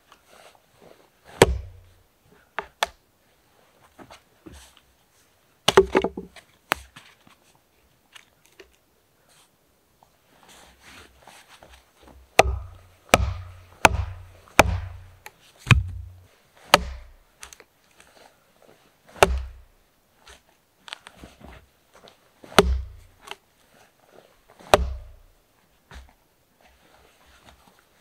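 Axe striking into a log, then a wooden club beating on the axe stuck in the log to drive it through and split the log. These are sharp wooden knocks, a few spaced out early on, a quick run of about six near the middle, then a few more spaced a couple of seconds apart.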